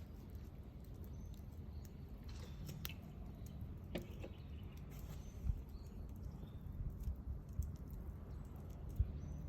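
Wood bonfire crackling with scattered sharp pops, over a low rumble, with a few dull thumps about five and a half seconds in and near the end.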